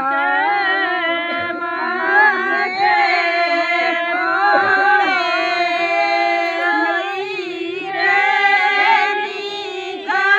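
Women singing a song together, with long held, wavering notes and no breaks.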